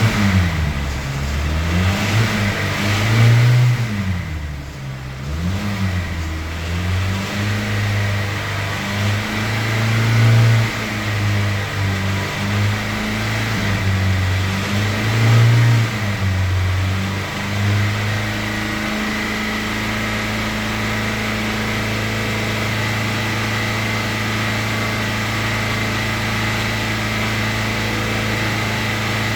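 Hyundai Sonata engine held at high revs, around 3000 rpm, as a liquid-free attempt to cure a ticking noise from the engine. The revs rise and dip repeatedly at first, then settle into a steady high note for the second half.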